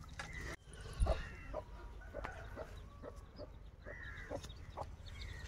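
Hens clucking repeatedly in short calls, with a single thump about a second in.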